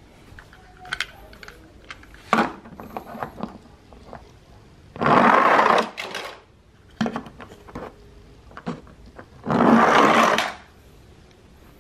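Small plastic toy vehicles rolling fast down a ramp, their wheels making a loud rolling noise twice, each time for about a second. Scattered clicks and knocks come between the runs.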